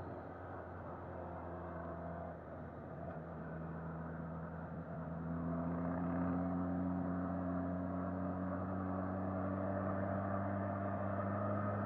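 2019 Suzuki Katana's 999 cc inline-four engine running under way, heard from on the bike. About five seconds in the engine note rises in pitch and gets louder as the rider opens the throttle.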